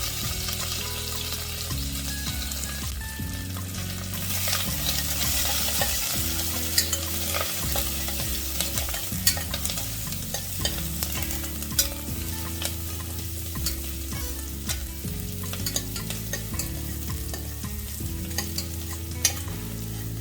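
Chopped onion, green chilies and curry leaves sizzling in hot oil in a pressure cooker while being stirred, with scattered clicks of the spoon against the pot.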